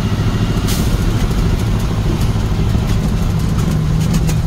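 Motor vehicle engine running steadily while driving, with a few sharp clicks or rattles, a cluster of them near the end.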